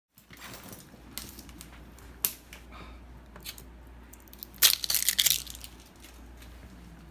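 Thin plastic water bottle crackling and crinkling in the hand as its screw cap is twisted, with a loud burst of crinkling a little past halfway. Scattered sharp clicks come before it.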